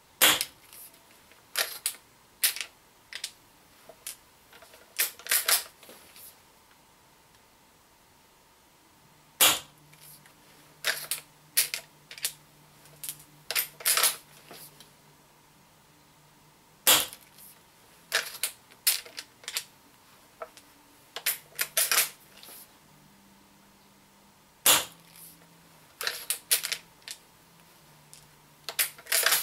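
Umarex Legends Cowboy CO2 lever-action rifle fired four times, roughly every seven to eight seconds, each shot a sharp crack. Between the shots come clusters of smaller mechanical clicks and clatter from the lever being cycled and shells being ejected.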